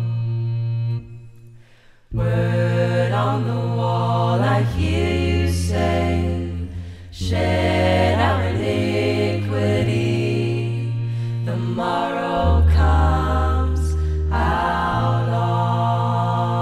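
Women's vocal ensemble singing in close harmony over deep held bass notes that change pitch a few times. The voices stop together about a second in and come back a second later, with another brief break around seven seconds.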